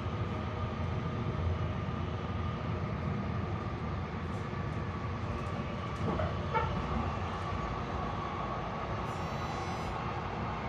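Moving passenger train heard from inside the car: a steady rumble of the wheels on the track with a thin steady whine over it, and a few knocks about six seconds in.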